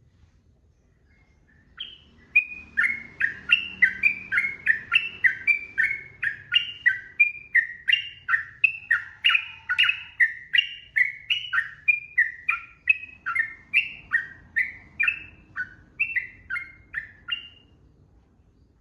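Sooty-headed bulbul (trucukan) singing a long unbroken run of short whistled notes, about two a second, each sliding down in pitch. The run starts about two seconds in and stops shortly before the end.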